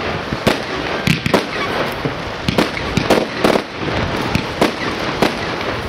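Fireworks display: aerial shells bursting in an irregular series of sharp bangs, over a continuous noisy background.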